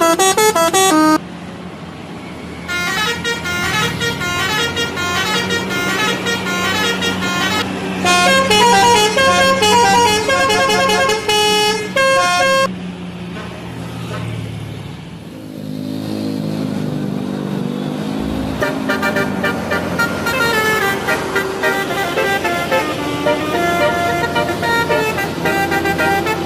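Bus telolet horn playing a melody of quick stepped notes in long bursts, with a bus engine rumbling underneath. Midway the tune breaks off and mostly engine rumble is heard, then fainter horn notes start again.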